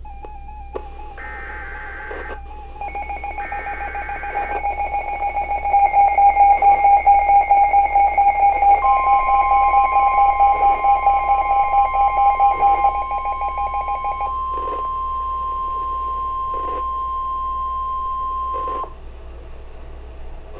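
Emergency Alert System alert tones from a NOAA Weather Radio broadcast. Two short screeching data bursts come first, the SAME header that codes the warning, with a pulsing alarm tone that grows louder over it. Then a steady single-pitched attention tone, the 1050 Hz warning alarm, is held for about ten seconds and cuts off a little before the end.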